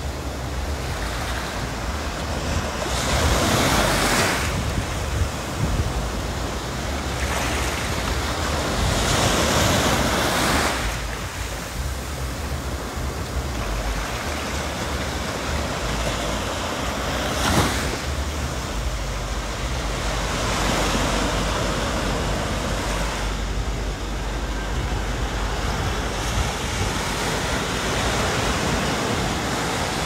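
Small waves breaking and washing up over a sandy beach, a continuous surf hiss that swells and fades several times as each wave rolls in.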